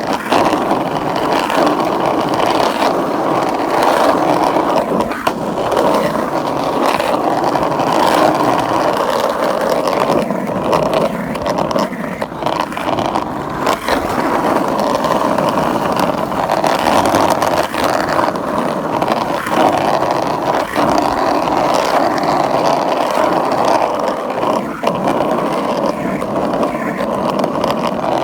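Skateboard wheels rolling on pavement: a continuous rumble with scattered sharp clacks.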